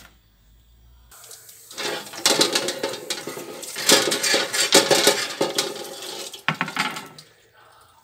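Tap water splashing over a metal wire fan guard as it is rinsed by hand in a sink, with the wire grille clattering and knocking against the basin. It starts about a second and a half in and stops shortly before the end.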